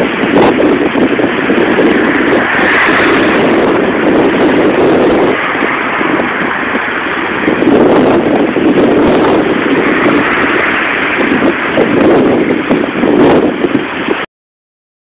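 Storm-force wind buffeting the microphone: a loud, continuous rushing that swells and eases in gusts. It cuts out abruptly near the end.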